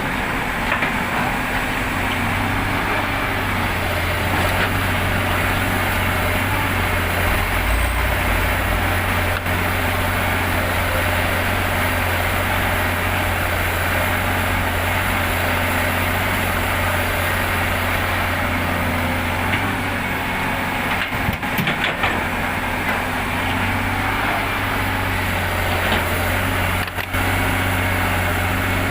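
Heavy diesel engines of earthmoving machines, an excavator and dump trucks, running steadily with a constant low hum, dipping briefly a couple of times near the end.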